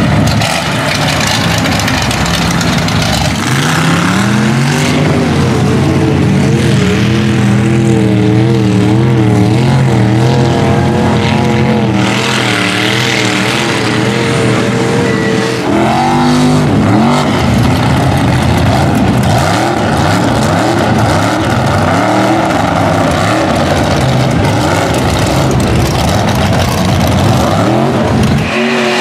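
Lifted 4x4 mud trucks' engines revving hard while driving through deep mud. Pitch climbs and wavers unevenly under load, with repeated sharp revs in the second half.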